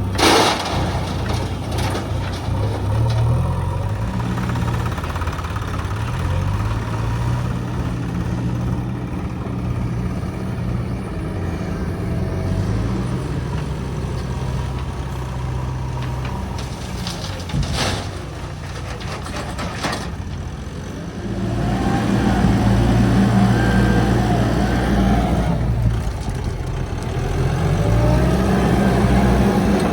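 Heavy diesel engines of backhoe loaders and trucks running and revving up and down under load. A sharp knock comes right at the start, and two more come about 18 and 20 seconds in. The engines grow louder for the last third.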